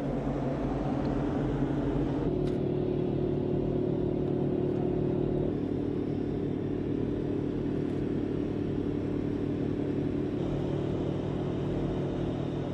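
Engine on the dive support boat running steadily, a low hum with a higher tone joining about two seconds in.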